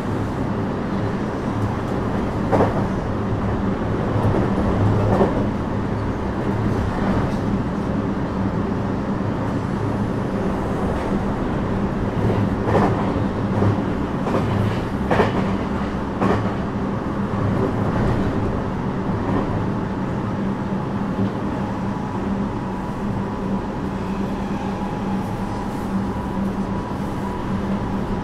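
Onboard running sound of a JR West 321 series electric train with a Toshiba IGBT inverter: steady rumble of wheels on rail, with scattered clacks over rail joints. A faint steady whine comes in near the end.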